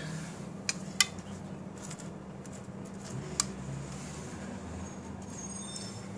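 A serving spoon clicking against clear topping bowls while banana slices are spooned out: three light clicks, two close together about a second in and one more a few seconds later, over a steady low hum.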